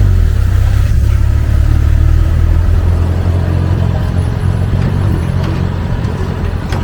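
Tour vehicle's engine running as it drives along the trail, a steady low rumble with light rattling that eases off somewhat in the second half.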